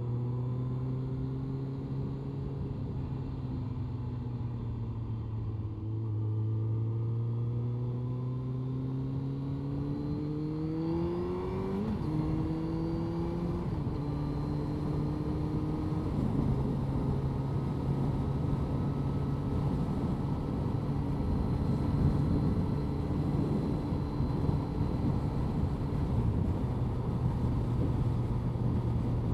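Honda CBR1100XX Blackbird's inline-four engine, heard from inside the rider's helmet. It pulls steadily, rises in pitch as the bike accelerates, then drops twice in quick succession, as with two upshifts, about halfway through. After that it runs at a steady cruise under growing wind and road noise.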